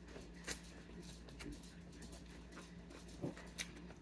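Faint eating sounds: a person chewing a mouthful of rice eaten by hand, with a few soft mouth clicks and smacks, over a steady low hum.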